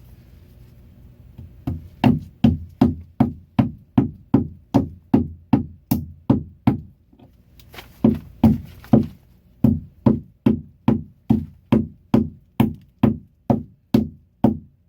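Hammer driving a cable staple into a wooden joist to fasten electrical cable, struck in a steady rhythm of about two blows a second. The blows start about two seconds in and pause briefly around the middle.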